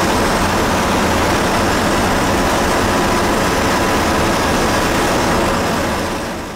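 Steady engine and road noise inside a bus moving at highway speed, with a low engine hum under the rush, fading out near the end.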